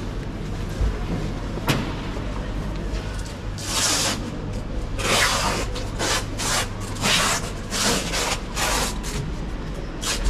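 Footsteps crunching on snow, a short crunch about twice a second from about four seconds in, over a steady low hum.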